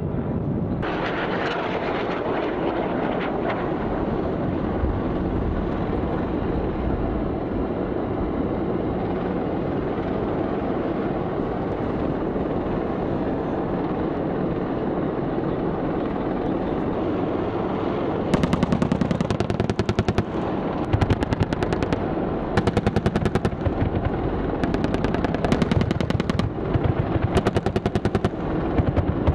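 A steady rumble, then from about two-thirds of the way in, a series of short bursts of rapid 30 mm cannon fire from an AH-64 Apache's M230 chain gun, about six bursts, each lasting one to two seconds.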